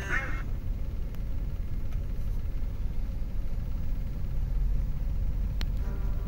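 2015 Ram 2500 pickup's engine idling, a steady low rumble heard from inside the cab, with a single sharp click about five and a half seconds in.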